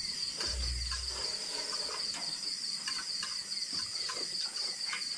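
Steady, high-pitched trilling chorus of night insects, with light clicks of spoons on plates.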